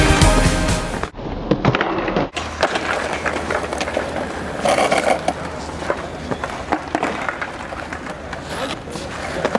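Background music that cuts off suddenly about a second in, followed by skateboard wheels rolling on smooth concrete, with scattered clacks of the board.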